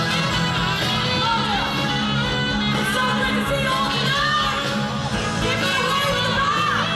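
A live pop-rock band playing with a female lead vocal singing over it, heard loud and full from the audience.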